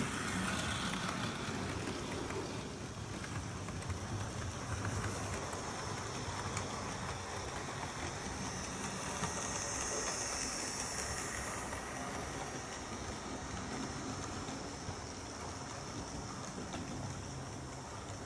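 Model railway trains running on the layout: a steady rolling rumble and whirr of wheels and motor on the track, with a few small clicks.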